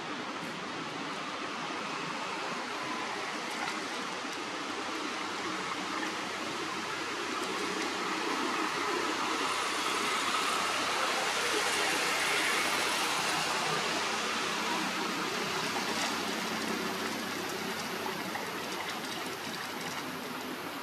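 Steady rushing noise that swells a little about halfway through and then settles back.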